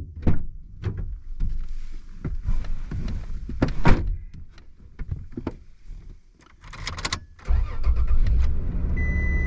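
Clunks and knocks inside a vehicle, then about seven and a half seconds in the Toyota Tacoma pickup's engine starts and settles into a steady idle. Two short high beeps from a chime sound near the end.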